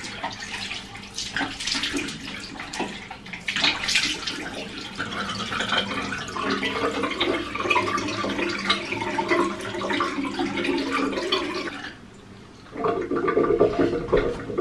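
Bathroom sink tap running into the basin, with splashing as water is scooped onto the face at first, then a steadier flow. The sound drops away briefly near the end and then returns.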